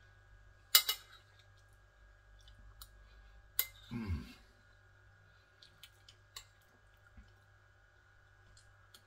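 A metal fork clinking and scraping against a plate while scooping macaroni: a sharp clink about a second in, another past three seconds, then a few lighter taps. A brief low sound falls in pitch just after the second clink.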